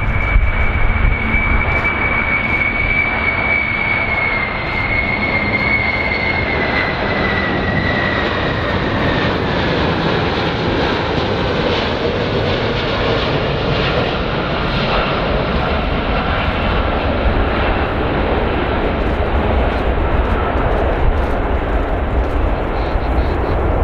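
Jet engines of a Boeing VC-25A (747-200 airliner) on final approach: a steady loud engine noise with a high whine that slowly falls in pitch through the first half, as the aircraft passes low overhead.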